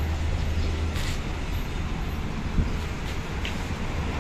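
Wind buffeting the microphone: a steady low rumble with an even hiss over it, and no distinct engine note.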